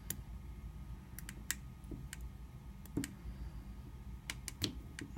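Faint, irregular small metallic clicks and ticks from a hook pick working the tiny wafers of a keyed gun lock held under a tension wrench.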